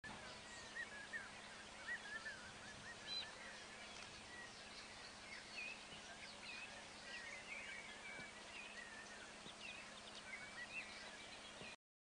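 Faint outdoor ambience of many small birds chirping and calling, short wavering notes overlapping throughout, over a steady hiss and a low hum. The sound cuts off abruptly just before the end.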